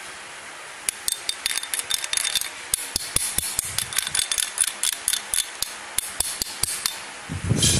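Rapid, irregular metallic taps and clicks on a steel plate as slag and flux crust are knocked off fresh arc-weld beads, several strikes a second, followed by a dull thump near the end.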